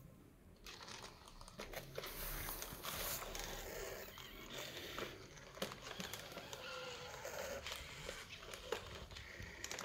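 Sony Aibo ERS-7 robot dog shifting its legs and head as it lies on its side: the joint servos and plastic limbs make a soft continuous whirring and rustling with scattered small clicks.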